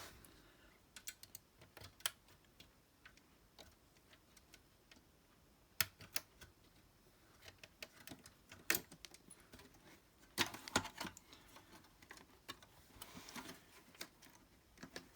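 Irregular sharp clicks and taps of a paper clip poking into the Xbox 360 E disc drive's manual-eject hole and of the plastic console being handled, with a few louder clacks; the tray is stuck and won't come out.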